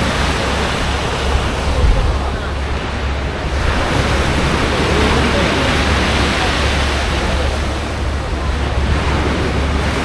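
Sea waves breaking and washing up over a rocky, stony shore, surging and easing a few times, with wind buffeting the microphone.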